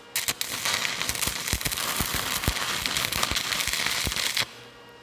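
Stick-welding arc from a 308 stainless steel electrode on a Hitbox TIG 200 inverter, struck just after the start and burning for about four and a half seconds with a steady crackle and frequent pops before it stops suddenly. The welder takes this crackling as a sign the 308 rod is laying a good weld.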